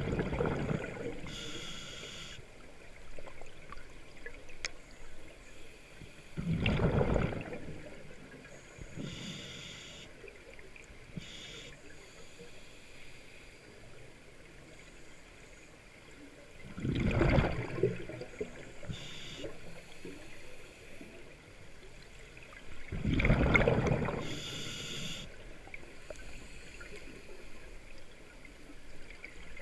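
Scuba diver breathing through a regulator underwater: short hissing inhalations, and three rushing bursts of exhaled bubbles several seconds apart.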